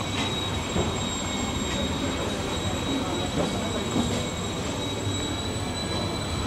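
Town street ambience: a low steady rumble of traffic with faint voices and a few light knocks, under a thin high-pitched whine that holds steady throughout.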